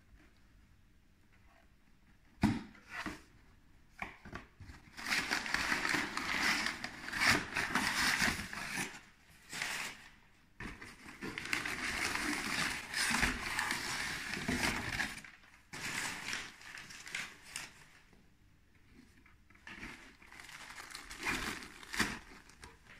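Brown kraft packing paper crumpling and rustling as it is pulled out of a cardboard box, in irregular bursts with short pauses. There is a single sharp knock about two and a half seconds in, and a plastic bag crinkles near the end.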